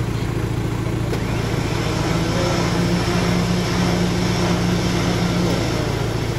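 Off-road 4x4 engine running steadily. A steady hum joins about two seconds in and stops shortly before the end.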